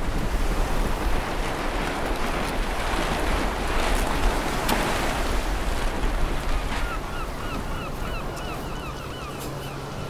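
Wind and choppy sea surf, with wind buffeting the microphone. About seven seconds in, the rush eases and a fast run of short high chirps, about four or five a second, comes in over a low steady hum.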